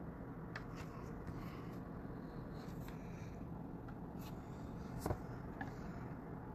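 Faint steady background hum with light scratching and small clicks, and one sharper click about five seconds in.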